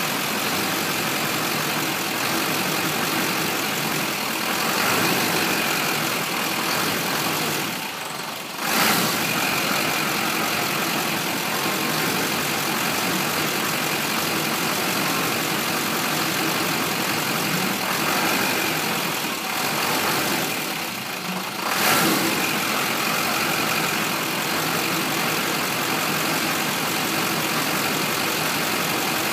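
LB7 Duramax 6.6-litre V8 turbo-diesel idling roughly, an engine that won't hold a proper idle. Twice, about 8 and 21 seconds in, the sound sags briefly and then surges back louder.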